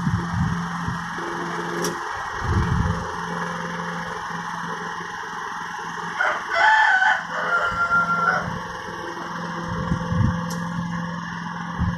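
Walk-behind rotary lawnmower running steadily while it is pushed across grass. A rooster crows once about six seconds in, louder than the mower.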